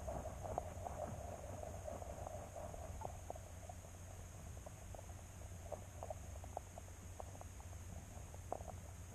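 Underwater camera audio: a steady low hum with a faint high whine, and many small scattered clicks and ticks, denser in the first few seconds.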